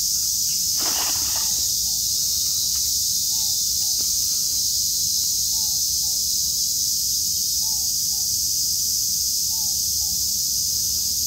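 Steady high-pitched drone of an insect chorus, with a short animal call repeating irregularly, often in pairs. About a second in there is a brief splash as the cast net lands on the pond.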